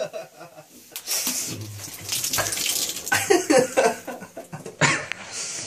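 Beer gushing and splashing out of a can being shotgunned, with some shouting voices over it.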